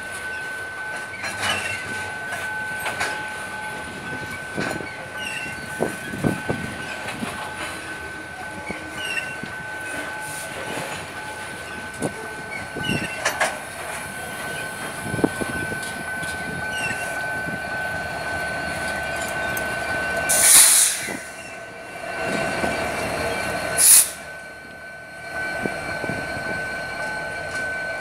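Freight train of covered hopper wagons rolling past, wheels clicking over rail joints in a steady rhythm, with a steady high ringing tone from the wheels on the rails. Two loud short bursts stand out, about twenty and twenty-four seconds in.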